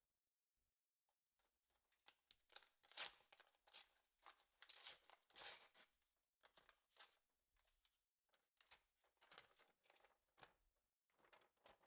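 Faint, irregular rustling noises in short bursts, loudest in the first half.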